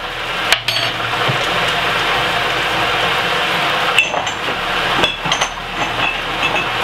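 Diced potatoes sautéing in a pot with a steady sizzle, with a few light metal clinks from a spoon at the pot.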